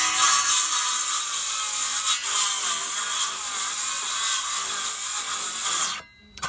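A power saw cutting through wood. It runs steadily, dips briefly about two seconds in, and stops suddenly near the end.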